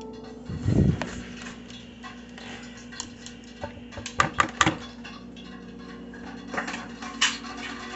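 Kitchen handling sounds while flour is scooped into a mixing bowl: a dull thump just under a second in, then a quick run of sharp clicks and clinks of cup and bowl around four seconds, and another knock near the end, over a steady low hum.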